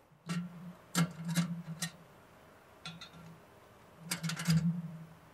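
Metal covers of clamp-on flowmeter mounting frames being handled and lifted off, giving a series of light metal clicks and knocks, with a quick cluster of them about four seconds in.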